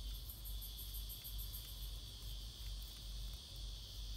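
Insects chirring steadily and high-pitched, with a run of rapid pulses in the first second or two, over a faint low hum.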